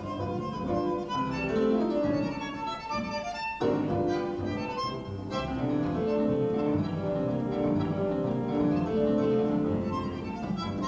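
Tango orchestra playing an instrumental passage live, with violins, bandoneón, double bass and piano. The music breaks off for a moment about three and a half seconds in, then comes back in full.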